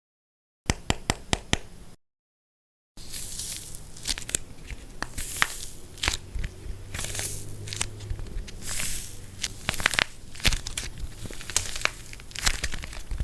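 Dried plaster clay cracking and crumbling as it is crushed: a quick run of sharp snaps about a second in, then after a short silent gap, steady crackling and crunching with frequent sharp cracks.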